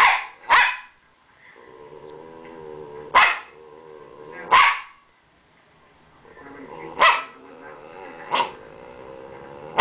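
Rat terrier giving its playful, attention-seeking bark: about six sharp barks, roughly one every second and a half, with a low, steady growl between them.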